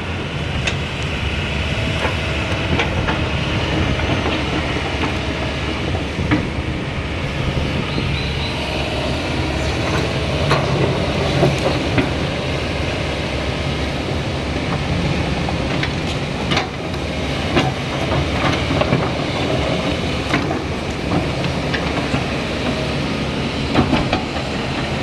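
Heavy diesel excavator engine running steadily under work, with scattered clanks and knocks.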